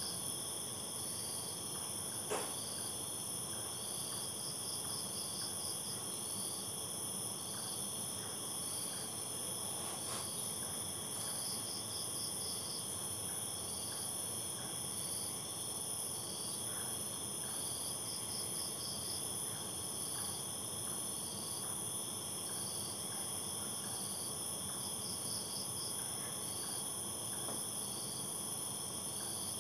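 Night insects such as crickets chirping without pause: a steady high trill under groups of short pulsed chirps that repeat every second or two. A single faint click about two seconds in.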